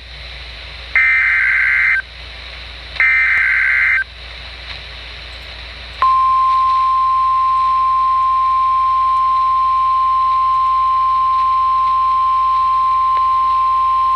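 Emergency Alert System broadcast on NOAA Weather Radio: two screeching SAME header data bursts, each about a second long and two seconds apart. About six seconds in comes the steady single-pitch 1050 Hz weather radio warning alarm tone, which signals that a warning (here a severe thunderstorm warning) is about to be read.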